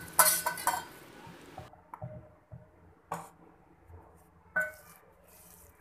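Stainless steel bowls clinking and ringing: a quick cluster of knocks in the first second, then three single knocks spaced a second or more apart, each ringing briefly, as a wooden spoon scoops softened cream in the bowl.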